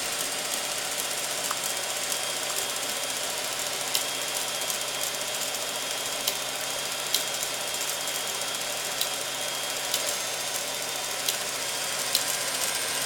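Wittnauer WD-400 8mm film projector running: a steady mechanical whir with a low hum, and a few sharp clicks at scattered moments.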